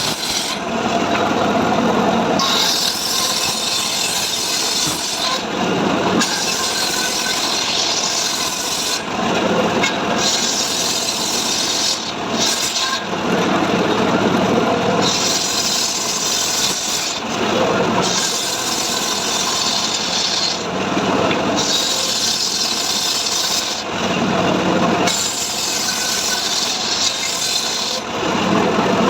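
Homemade saw rig cutting dry mahogany in repeated passes: a bright hiss alternates with a lower rasping about every three to four seconds.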